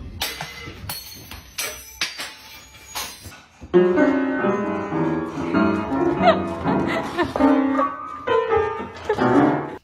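Piano music, coming in suddenly a few seconds in; before it, a few scattered knocks and clicks.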